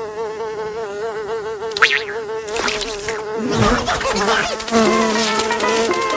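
Cartoon fly buzzing, its pitch wobbling up and down. Short clicks and other quick effects come in from about two and a half seconds in, and a second, lower buzz joins near the end.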